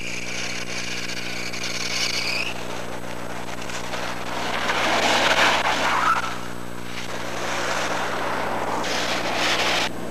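Minivan driving on a snowy road, its tyre and engine noise swelling loudest about five seconds in as it swings past, with a thin high whine in the first couple of seconds. A steady low hum runs underneath, and the sound cuts off sharply near the end.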